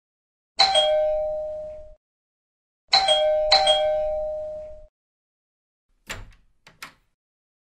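Two-note ding-dong doorbell chime rung once, then twice in quick succession, each falling from a higher to a lower note and ringing out. A couple of sharp clicks follow near the end as the door's bolt is drawn back.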